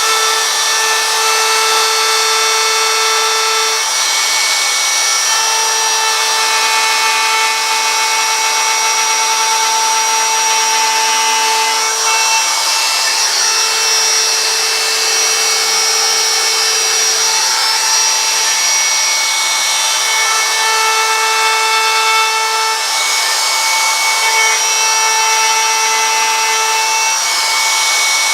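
A power tool runs continuously while cutting wood. Its steady whine shifts in pitch every few seconds as the load changes.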